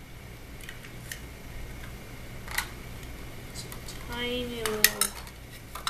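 Scattered light clicks and taps of a small plastic children's watch and its packaging being handled and unpacked. A short vocal sound, like a brief 'mm' or 'ooh', comes about four seconds in.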